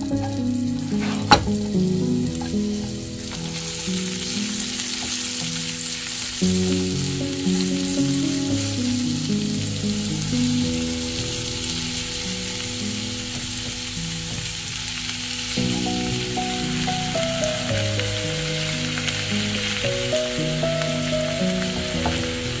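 Sliced onions, and then chicken thighs with them, sizzling in hot oil in a frying pan while being stirred, with a sharp click just over a second in. Soft background music with held notes plays underneath.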